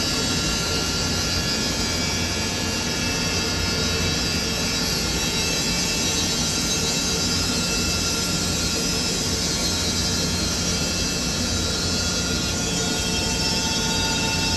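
Sawmill running steadily, a constant loud rush with a faint whine, while sawing thin 6 mm boards for fence elements; a new higher tone comes in near the end.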